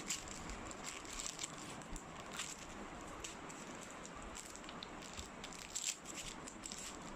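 Packaging rustling and crinkling in the hands, with scattered small clicks, as a luggage tag is worked out of its tight wrapping.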